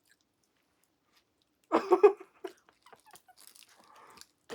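Eating close to the microphone: near silence, then a loud short bite about two seconds in, followed by softer chewing clicks and smacks.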